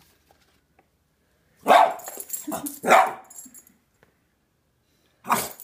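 Boston Terrier barking: a quick run of three barks a couple of seconds in, then one more bark near the end.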